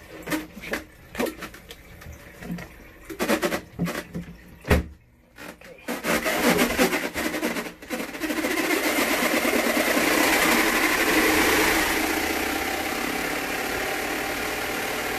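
Knocks and clicks as wet clothes are pushed into the drum of an HQ Ezywash mini washing machine and its lid is shut. About six seconds in, the machine's spin motor starts, building up over a few seconds and then running steadily in the spin cycle.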